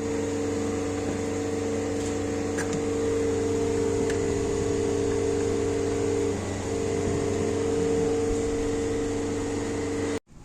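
A motor-driven machine running steadily, giving a hum made of several fixed tones with a faint higher whine. It wavers briefly about two-thirds of the way in and stops abruptly near the end.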